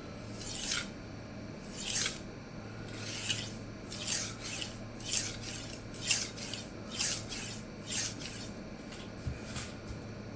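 52100 steel chef knife edge drawn across a resin-bond diamond sharpening stone in light deburring passes: about nine short gritty strokes, roughly one a second, as the burr breaks loose from the edge.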